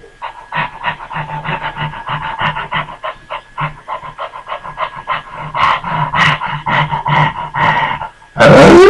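A dog panting fast and evenly, about six breaths a second, with a faint steady tone behind it. A loud sudden sound cuts in near the end.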